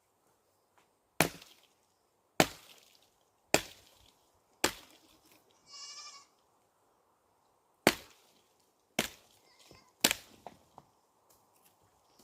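Small axe chopping wood, seven sharp blows about a second apart with a pause in the middle. Around halfway through, a goat bleats once, a short quavering call.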